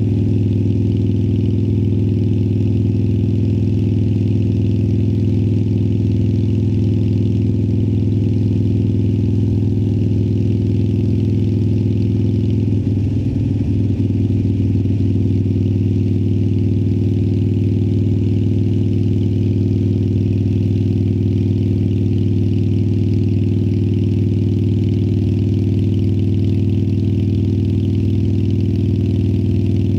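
2018 Harley-Davidson Sportster Iron 1200's air-cooled 1200 cc V-twin running steadily through Vance & Hines Twin Slash slip-on exhausts, with a brief change in pitch and level about halfway through.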